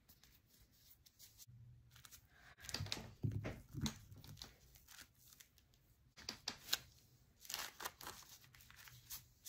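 Soft handling sounds of paper stamping: a wood-mounted stamp set down and pressed onto a paper coffee-filter envelope lying on a foam sheet, with paper rustling as the envelope is handled. A few quiet knocks and rustles come about three seconds in and again in the last few seconds.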